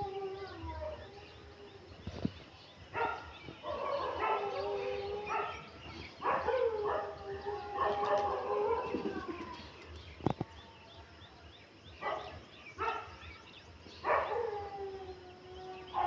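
Repeated bouts of long animal calls, sometimes several overlapping, each held on one pitch and then dropping at the end, with quieter gaps between bouts.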